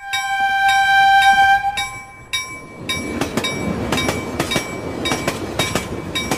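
Train horn sounding one steady note for about two seconds, then a passing train's wheels clattering rhythmically over the rails, with tinkling chime effects over the top.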